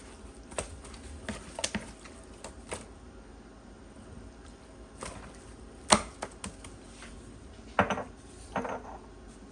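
Scattered clicks and knocks of kitchen dishes and utensils being handled while fish is seasoned, the sharpest knock about six seconds in, with a couple of short rattles near the end.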